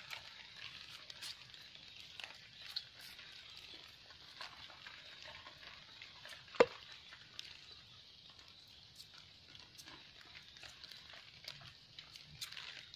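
A knife cutting at bamboo shoots in dry bamboo leaf litter: soft crackly rustling and scraping with scattered small clicks, and one sharp knock about six and a half seconds in.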